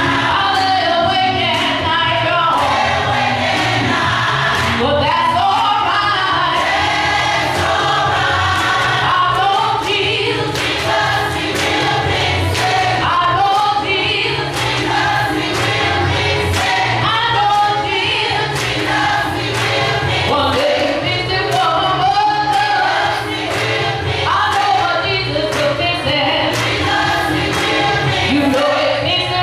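Gospel choir singing in full voice, accompanied by an electronic keyboard, with a steady beat under the voices.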